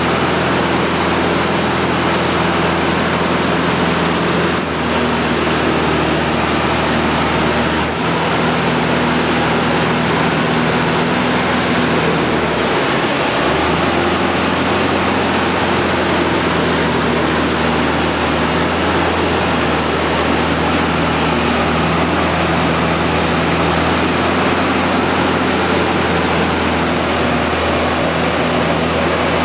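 Cockpit noise of a Mudry CAP 10B aerobatic plane in flight: the four-cylinder Lycoming engine and propeller running loud and steady under a rush of air. The engine note shifts a little in pitch a few times as power changes through the manoeuvres.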